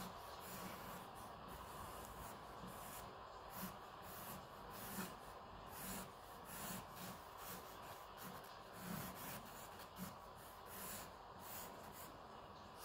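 Pencil scratching on paper as a sketch is drawn: a faint, irregular run of short strokes.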